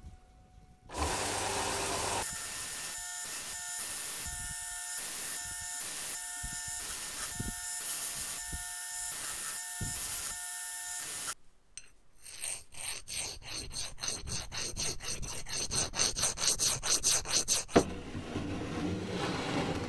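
Vertical belt sander running while a steel hammer head is pressed against the belt and ground, sparks flying. It stops suddenly about eleven seconds in, and a rapid rhythmic scraping follows at about four strokes a second.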